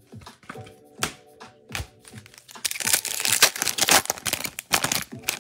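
Foil wrapper of a trading-card pack being torn open and crinkled, loudest from about three to four seconds in, with a few shorter crackles near the end, over background music.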